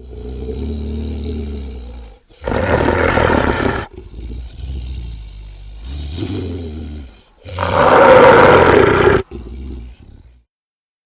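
Were-beast monster sound effect: low growling broken by two loud roars, about two and a half seconds in and about seven and a half seconds in, dying away about ten seconds in.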